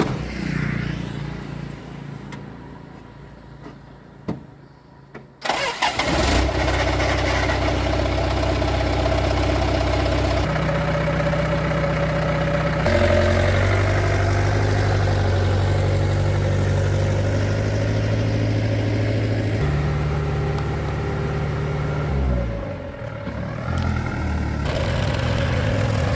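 Vintage truck engine starting about five seconds in and then running, its pitch shifting up and down in steps several times, dropping briefly near the end before picking up again.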